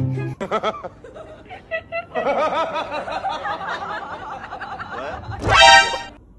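A person snickering and laughing in quick bursts, with a louder outburst near the end.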